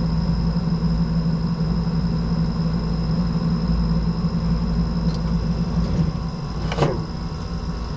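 A steady low machine hum, like an engine or motor running, with a single sharp click about seven seconds in.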